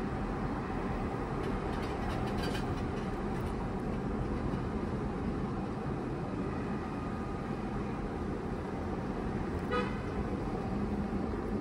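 Steady low background rumble, with a short pitched toot about two seconds in and another near ten seconds.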